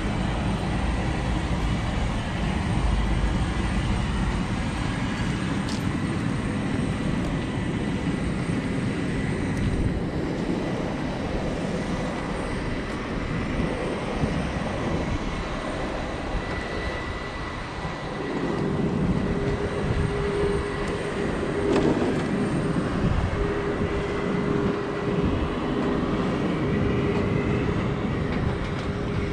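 Steady airport apron noise of jet aircraft and ground equipment running, with a thin high whine throughout. About 18 seconds in, a steady hum joins and the noise grows louder.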